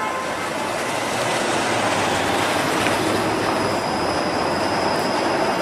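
TTC Flexity Outlook low-floor streetcar running toward the listener on street track, a steady rolling rumble and hiss. A thin, steady high-pitched tone sets in about halfway and grows as it comes closer.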